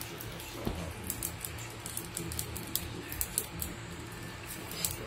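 Havan fire crackling, with irregular sharp little pops over a low steady hum.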